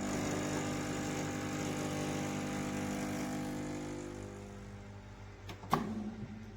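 MiiCoffee Apex espresso machine's pump running with a steady hum that fades down about four seconds in, followed by one short sharp sound near the end.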